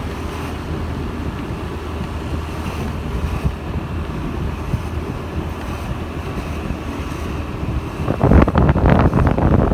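Motorbike riding along a street: a steady low engine hum under wind rushing over the microphone, which turns louder and gustier over the last second and a half.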